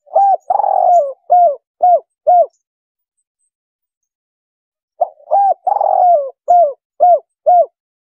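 Spotted dove (tekukur) cooing: two call phrases about two and a half seconds apart, each a couple of short coos, one long drawn-out coo, then three short 'kuk' notes at the end, the three-'kuk' variant of the call.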